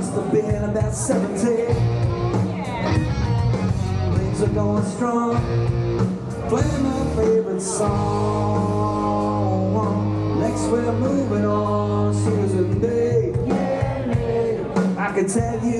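Live band playing with a singer, amplified through a PA and heard from within the crowd.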